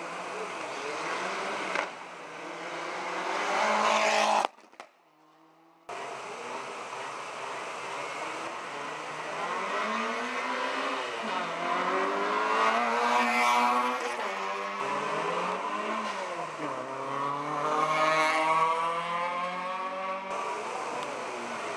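Competition rally and hill-climb cars accelerating hard, engines revving up and dropping back again and again as they shift through the gears. The sound breaks off to near silence for about a second, four and a half seconds in.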